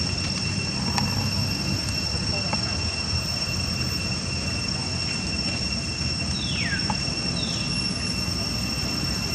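Steady high-pitched drone of insects in the vegetation, over a low rumble, with two short falling calls about six and seven and a half seconds in.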